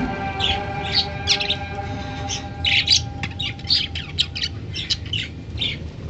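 Budgerigars chirping: a quick string of short, sharp chirps, busiest in the middle of the stretch.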